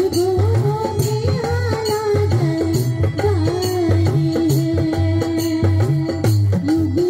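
Live devotional bhajan music through a sound system: a wavering melody line over a steady hand-drum rhythm, with jingling percussion keeping the beat.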